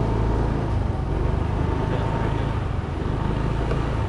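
A scooter's small engine running steadily while riding at low speed, with a steady low rumble that is partly wind passing over the microphone.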